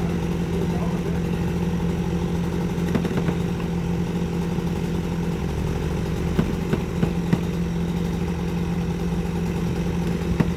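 Heavy work vehicle's engine running steadily at a constant speed, with a few light knocks and clatters about three seconds in, again between six and seven and a half seconds in, and once near the end.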